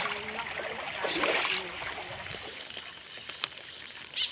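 Floodwater splashing and running, with a louder splash about a second in that then dies away to a faint rush.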